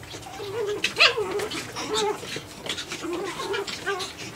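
Japanese Chin puppies vocalizing as they play together: a run of short, wavering whines and cries, the loudest about a second in.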